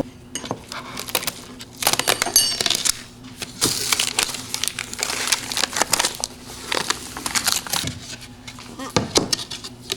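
Handling noise: irregular crinkling and rustling with light clicks and knocks, as the CNC-cut acrylic window piece is handled and looked over.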